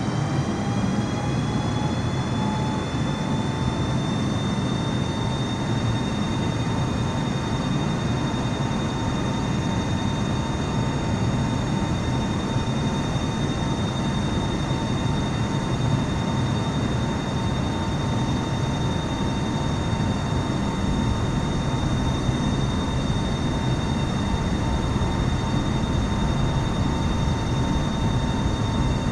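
Airliner jet engines spooling up. The whine rises in pitch over the first few seconds, then holds steady above a broad rumble, as at takeoff thrust.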